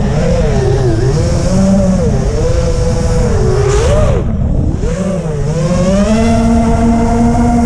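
FPV quadcopter's electric motors and propellers whining, the pitch swooping up and down with the throttle, then held high and steady over the last couple of seconds. A rough wind rush on the onboard camera's microphone runs underneath.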